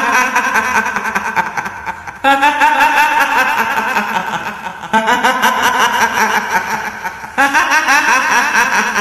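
Kuntilanak ghost laugh: a woman's high-pitched, wavering cackle. It restarts loudly about every two and a half seconds and trails off each time.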